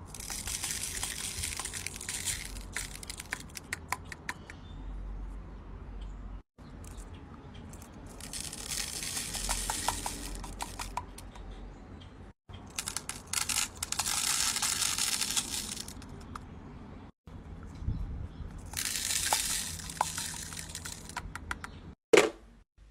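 Beads poured from a small plastic bottle into the compartments of a plastic bead organizer: a rattling rush of many small clicks, in four pours of about two seconds each with quieter handling between. A single loud sharp click comes near the end.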